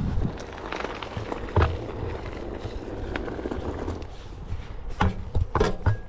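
Onewheel electric skateboard rolling over a gravel trail: steady tyre and wind noise, with a sharp knock about a second and a half in and a cluster of knocks near the end.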